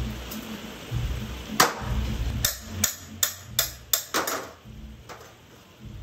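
Metal ingot mould knocked against a steel tray to drop out a freshly poured Nordic Gold ingot: a quick run of about seven sharp metallic clanks, some ringing briefly, over a low steady rumble.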